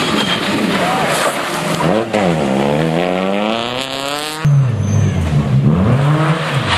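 Citroën C2 rally car's engine revving hard, the note dipping briefly and then climbing steadily in pitch as it accelerates. After an abrupt cut about two-thirds of the way in, a second rally car's engine is heard, its revs falling and rising again.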